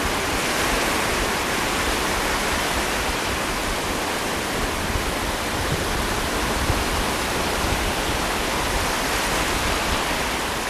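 Steady rushing noise of ocean surf with wind buffeting the microphone, the wash holding level without breaks.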